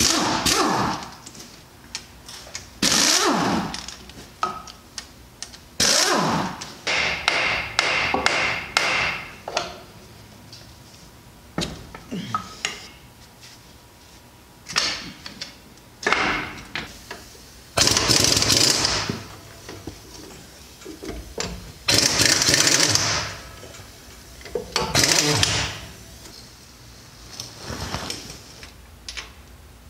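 Pneumatic impact wrench run in a dozen or so bursts of about a second each, loosening bolts on a heavy truck's drive axle.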